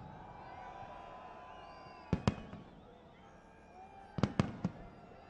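Aerial fireworks shells bursting with sharp bangs: a pair about two seconds in and three more in quick succession about four seconds in, with faint high tones sliding in pitch between the bursts.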